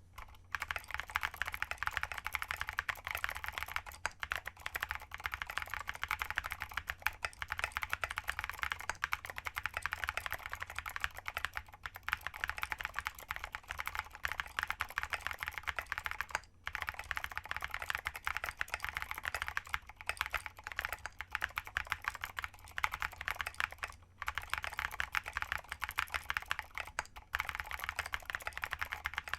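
Steady fast typing on a plateless mechanical keyboard with lubed vintage Cherry MX Blue clicky switches and SP Symbiosis keycaps, a rapid stream of sharp keystroke clicks. The typing breaks off briefly about 16 and 24 seconds in.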